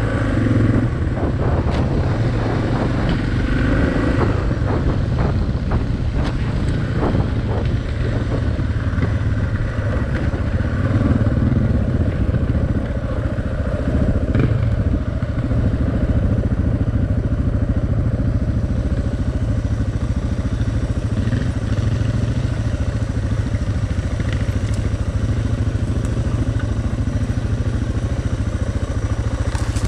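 Suzuki DR650's single-cylinder four-stroke engine running steadily as the bike rides a dirt track, with sharp knocks and rattles over roughly the first eight seconds.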